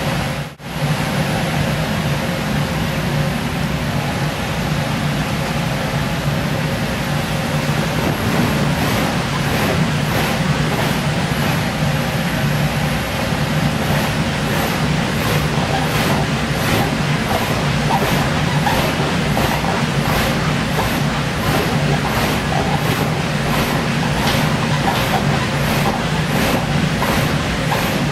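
Electric air blower of an inflatable bouncy castle running steadily with a loud, low hum. From about a third of the way in, a person bouncing on the inflated vinyl adds an even rhythm a little more than once a second.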